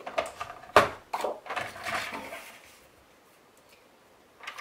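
Handling of a plastic paper trimmer and a sheet of card stock: one sharp knock a little under a second in, then the card rustling and sliding as it is pushed into place under the trimmer's rail.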